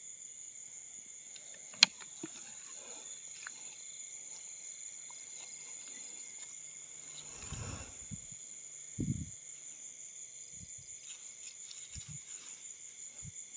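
Steady high-pitched chorus of night insects, crickets among them. There is one sharp click about two seconds in, then low thuds and rustling through tall grass around eight to nine seconds in.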